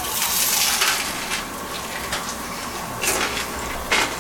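A crisp bite into a sandwich whose bun is grilled rice-wine rice cake (gijeongtteok) with a crunchy crust, followed by crunching chews. One long crackly crunch comes in the first second, then a few shorter crunches, about three, later on.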